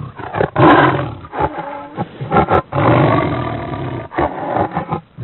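Tiger roaring: a string of loud, rough roars with short breaks between them, the longest about three seconds in.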